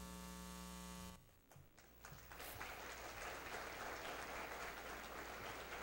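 A steady held tone cuts off about a second in. After a brief silence, faint applause from an auditorium audience begins and continues.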